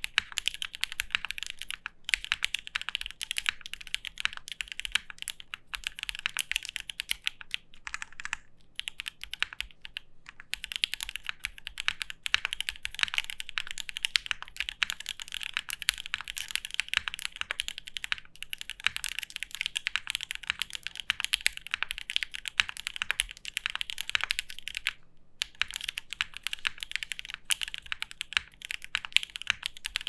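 Fast, continuous typing on a custom 60% top-mount mechanical keyboard with a POM plate, lubed and filmed SP-Star Polaris White switches and Cherry-profile keycaps: a dense stream of keystrokes with a few brief pauses.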